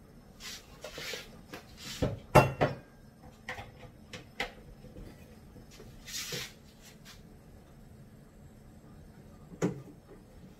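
Milk splashing from a carton into a stainless steel milk pitcher at first, then a run of knocks and clatters as the carton and pitcher are handled and set down on the counter. The loudest knock comes about two and a half seconds in, and a single sharp knock comes near the end.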